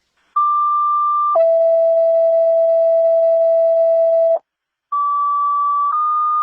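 Fire dispatch two-tone sequential paging tones over the radio, alerting stations before a call. A higher tone is held about a second and drops to a lower tone held about three seconds. After a short gap a second sequence begins: a higher tone for about a second, stepping to a slightly higher long tone.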